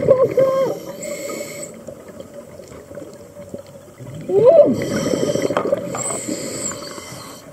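Underwater recording of a diver's muffled voice through the water: a short voiced sound at the start and one call that rises then falls about four and a half seconds in, over a steady hiss of water noise.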